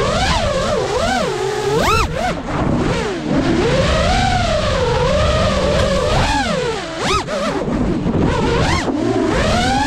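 Brushless motors and propellers of a 5-inch FPV freestyle quadcopter whining. The pitch swoops up and down with the throttle, with sharp rising surges about two seconds in, about seven seconds in and near the end, over a rough rumble of wind and prop wash on the onboard microphone.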